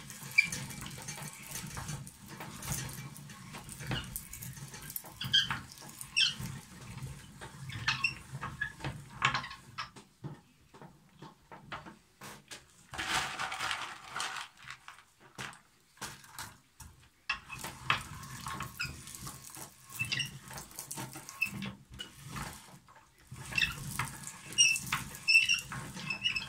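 Hand-cranked metal meat grinder grinding shelled walnuts as the crank turns, with repeated short high squeaks. About ten seconds in it stops for several seconds, broken by a brief rustle as walnut kernels are handled, then the grinding starts again.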